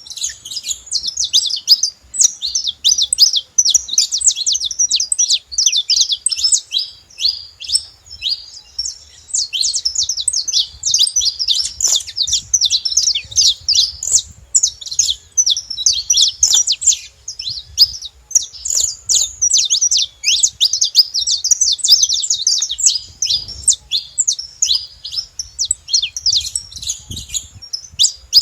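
Saffron finch singing: a long run of rapid, high chirping notes, continuing with only brief pauses.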